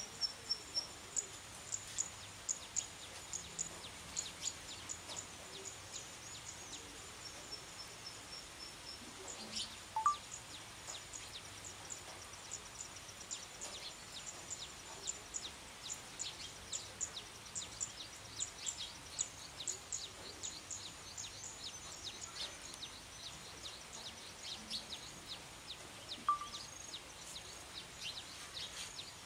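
Steady hiss of light rain, with small birds chirping in quick high runs of notes throughout. A louder single call stands out twice, about a third of the way in and near the end.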